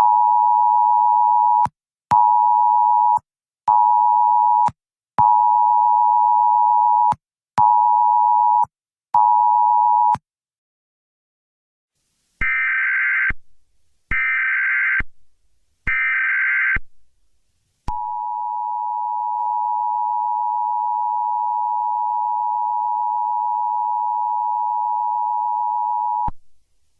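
Emergency alert signals: the Wireless Emergency Alert attention tone beeps in its long-short-short cadence twice, then three one-second bursts of SAME header data. Then comes the steady 1050 Hz NWS attention tone, held for about eight seconds.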